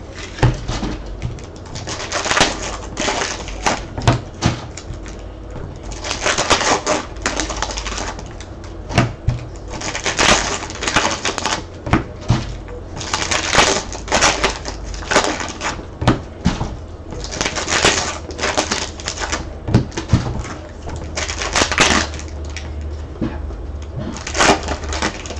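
Trading-card packs and cards being handled: wrappers crinkling and rustling in bursts of about a second every second or two, with sharp clicks among them.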